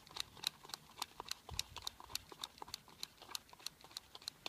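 Worm scissors snipping rapidly in a bait pot, about four to five cuts a second, chopping worms fine.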